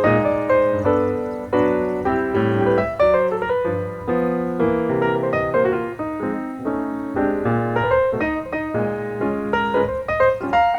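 Background piano music: a steady stream of notes with chords.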